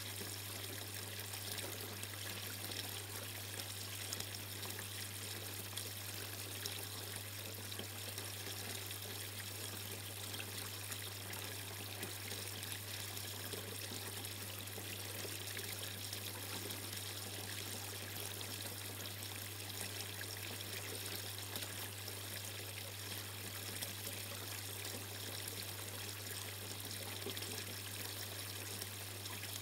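Water trickling and splashing steadily down a tiered tree-stump garden water feature, pouring from a spout into a bowl and spilling on into the basin below. A steady low hum runs underneath.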